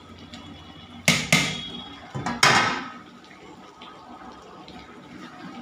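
Two loud clattering scrapes about a second apart, each fading with a faint metallic ring: the steel lid of a big aluminium cooking pot being lifted off and set down.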